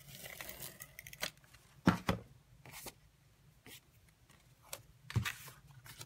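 Fast Fuse handheld adhesive applicator laying a strip of adhesive onto cardstock: a rasping, tearing tape noise in the first second or so. Sharp clicks and knocks follow, the loudest about two seconds in and again near the end.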